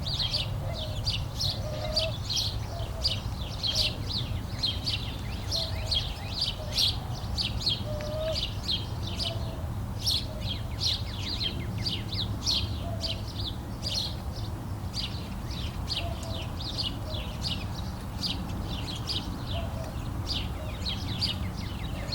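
Small birds chirping continuously, a rapid stream of short high chirps at several a second, over a steady low rumble.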